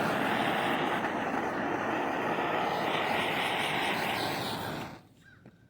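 Handheld blowtorch flame running with a steady rushing roar, shut off suddenly about five seconds in, likely shrinking heat-shrink tubing over a freshly soldered battery cable terminal.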